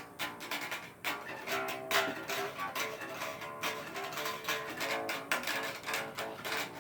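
Bass guitar being played: a steady run of plucked notes and short riffs.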